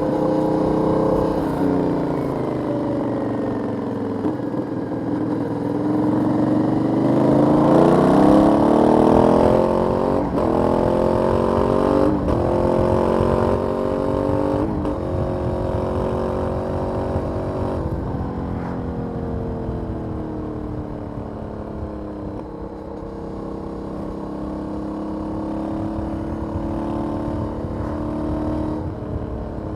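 Aprilia 900's 896 cc 90-degree V-twin on its stock exhaust under riding: the engine slows at first, then accelerates hard, with short breaks in the pitch at the gear changes. It then settles into a steadier cruise.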